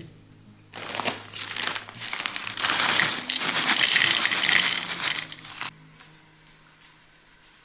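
Crinkling and rustling, irregular and loud, starting about a second in and stopping abruptly near the end.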